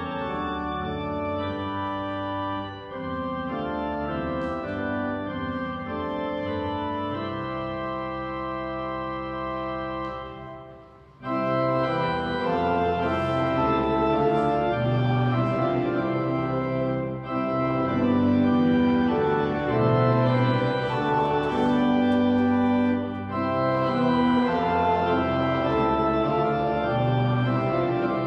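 Church organ playing slow, held chords. The softer opening phrase fades to a brief lull about ten seconds in, then the organ comes back louder with fuller chords.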